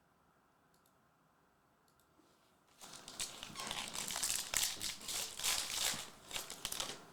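A Panini Prizm trading-card pack wrapper being torn open and crinkled: a dense run of crackling that starts about three seconds in, after a quiet stretch.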